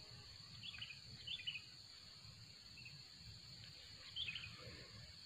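Faint outdoor ambience with a few short bird chirps, heard about a second in, again just after, and near the end.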